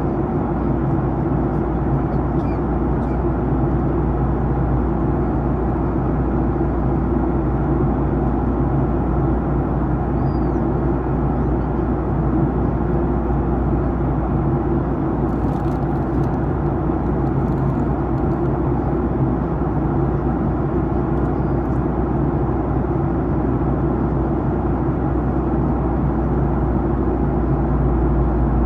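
Steady cabin noise inside a Boeing 737-900ER airliner during its descent: air rushing past the fuselage and the drone of its CFM56 engines. A few faint ticks come about halfway through.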